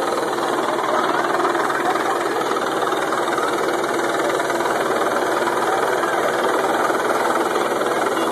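Medical helicopter descending to land, its turbine engine and rotor making a loud, steady noise with a fast rotor beat that holds even throughout.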